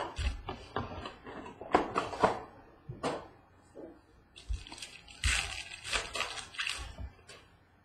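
Foil wrappers of baseball-card packs crinkling and tearing as the packs are handled and one is ripped open, in uneven flurries with the longest near the end. A few dull knocks on the desk come in between.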